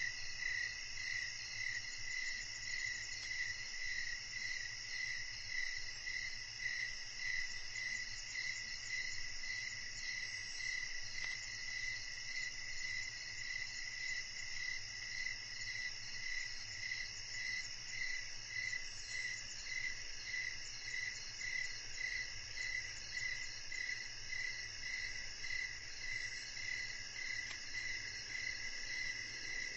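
Night chorus of crickets and other insects trilling steadily in several layers, one of them a pulsing call that repeats about twice a second.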